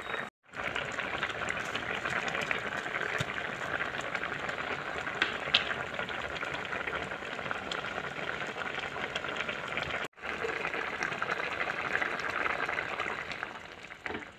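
Roselle-leaf and okra curry boiling hard in a pan, a dense bubbling crackle. It cuts out briefly twice, about half a second in and about ten seconds in, and softens near the end.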